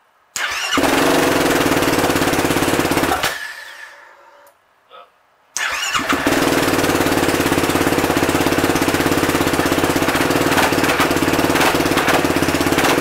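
Yamaha YFZ450R quad's single-cylinder four-stroke engine, breathing through a new Lonestar Racing full exhaust with no fuel tune yet, starts and runs steadily for about three seconds, then stops. After a short pause it is started again and runs steadily until the end.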